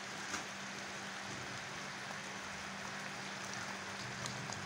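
Steak sauce with oxtail sizzling steadily in a hot pan, under a faint steady low hum, with a few light ticks.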